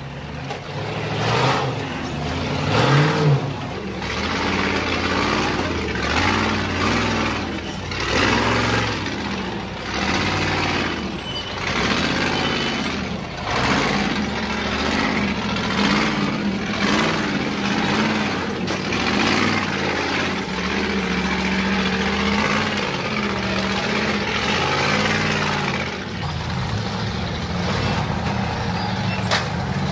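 Unlimited 4400-class rock-racing cars' engines revving hard in repeated bursts as they climb over boulders, the pitch surging up and dropping back about once a second. In the second half the engine note settles into a steadier drone.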